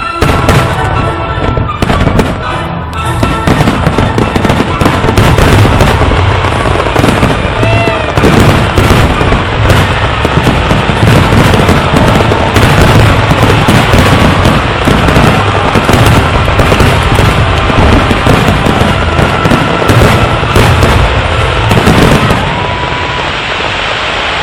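Fireworks display: a dense, continuous barrage of aerial shell bursts, bangs and crackling that ends about 22 seconds in.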